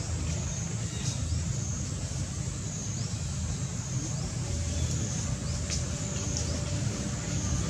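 Steady low rumble of outdoor background noise, with faint short high chirps now and then.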